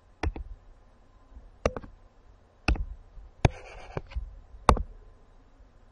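Sharp clicks of a computer pointing device, about six in all, several in quick pairs, as pen-ink tools are picked and handwriting is erased; the loudest click comes near the end.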